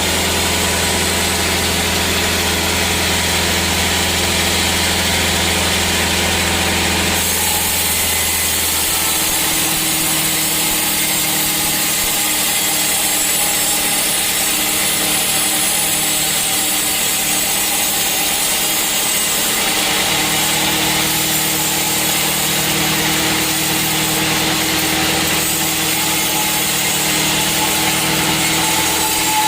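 Sawmill saw running, with a steady low hum for the first several seconds. About seven seconds in the sound changes abruptly to a steady sawing as the blade cuts through a hard teak stump.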